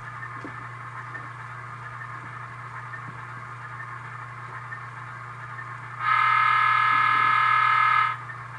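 Tsunami sound decoder in a model GE C44-9W diesel locomotive playing its idling engine sound through the model's small speaker, with a steady hum beneath. About six seconds in, one loud horn blast of about two seconds, a multi-note chord that stops abruptly.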